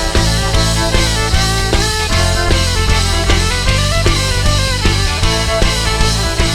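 A band playing an instrumental passage: a drum kit keeps a steady beat of about three hits a second under bass and pitched instruments, with no singing.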